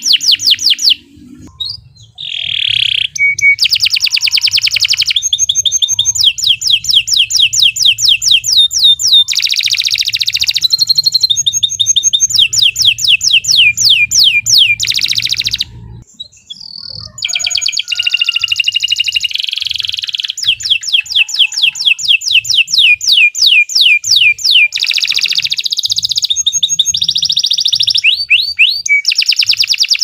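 Domestic canary singing a long, loud song of rapid trills and fast runs of repeated high notes, broken by two short pauses, one near the start and one about halfway.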